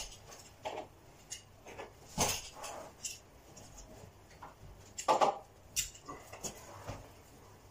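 Irregular scuffs, rustles and light knocks of a carpet fitter working carpet by hand, with two louder knocks about two seconds in and about five seconds in.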